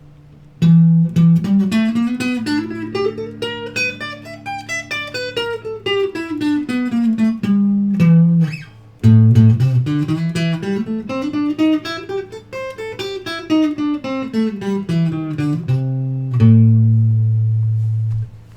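Telecaster-style electric guitar played through an amp's clean channel on its wax-potted single-coil ceramic neck pickup: two runs of picked single notes, each climbing and then falling, ending near the end on a held low note that is cut off.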